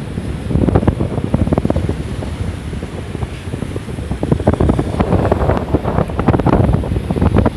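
Wind buffeting the microphone in gusts: a loud, uneven low rumble with many short thumps.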